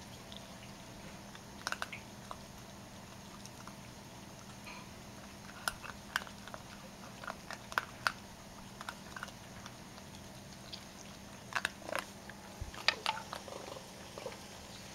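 Young raccoons eating dry food and crackers, with scattered crunches and clicks of chewing that come in small clusters.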